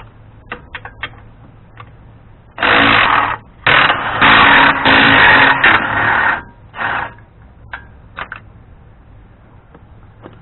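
A power tool running in three loud rattling bursts, the longest about two and a half seconds, as the caliper bracket and dust shield bolts on a Dana 44 front knuckle are loosened. Short metallic clicks come before and after.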